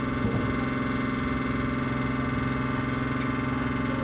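A boat's engine running with a steady, unchanging drone.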